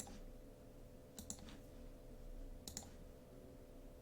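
Computer mouse clicking: a few sharp clicks, about a second and a half apart, the later ones coming as quick pairs, over a faint steady electrical hum.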